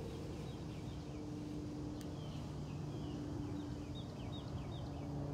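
A bird calling in a run of short, high, falling chirps, thickest in the second half, over a steady low hum.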